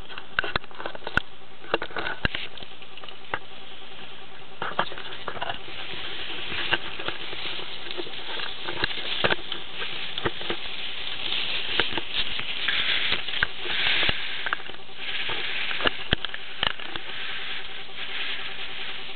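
Skis scraping over hard, crusty snow, a steady scratchy hiss that grows louder about twelve to sixteen seconds in, with many scattered sharp clicks and knocks.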